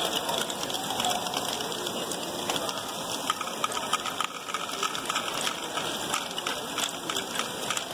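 LEGO Great Ball Contraption modules running: small plastic balls rattling through a pachinko-style pin board and a motorised ball lift, a steady dense clatter of small clicks with plastic gears ticking.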